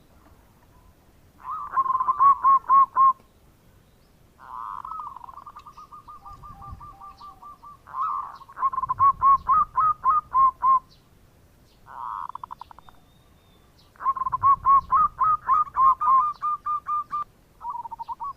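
Zebra dove (perkutut) cooing: several bouts of quick, evenly repeated ringing coos, each bout opening with a short rolling trill, with brief pauses between bouts.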